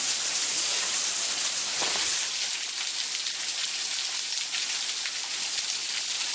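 Small waterfall splashing close by: a steady, fairly loud hiss of falling water.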